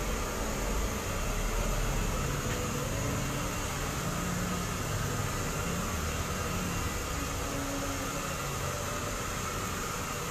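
Steady fan noise with a low rumble underneath, unbroken throughout.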